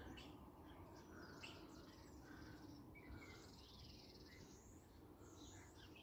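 Faint birdsong: many short, scattered chirps and calls from several small birds, over a faint low background hum.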